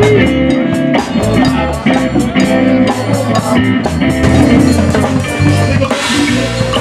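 Live band music: drum kit and electric guitar over a bass line, with a steady beat.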